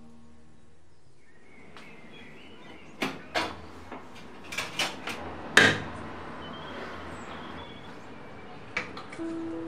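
Kitchen clatter: a handful of sharp knocks and clicks over a low hiss, the loudest about five and a half seconds in, with a quick run of clicks near the end.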